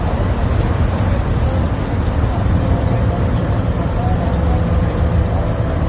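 MWM MaxxForce 7.12 TCE six-cylinder inline turbodiesel of an Agrale MA 17.0 bus running steadily.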